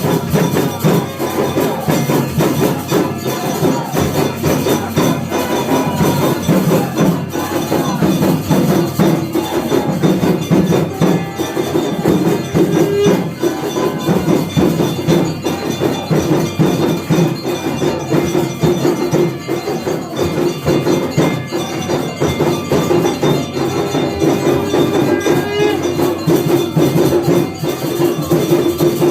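Hindu temple aarti music: bells, cymbals and drums struck together in a fast, continuous rhythm, with a steady held tone under them.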